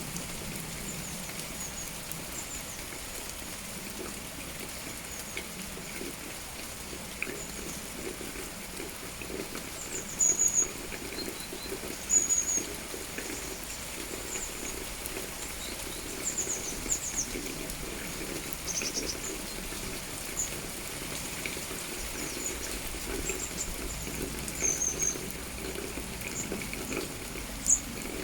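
Steady rain with short, high, thin bird chirps scattered through it; the loudest chirps come about ten and twelve seconds in.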